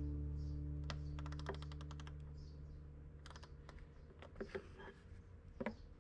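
Snap-on multi-position ratchet clicking as it is worked on an engine bolt: a quick run of clicks about a second in, then scattered clicks and taps. The tail of a guitar chord fades out underneath in the first half.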